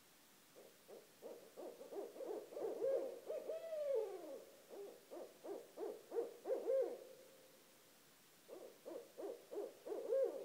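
Barred owls calling: a fast run of hoots with one long drooping note about four seconds in. After a short pause, another rapid burst of hoots comes near the end.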